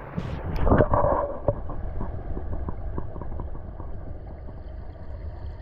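Water splashing about a second in, then the muffled sound of water around a camera held under water: a low rumble with many small bubbling ticks.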